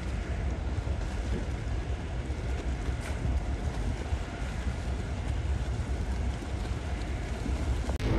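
Wind buffeting the microphone, a gusty low rumble over a steady hiss, by open sea; it cuts off abruptly near the end.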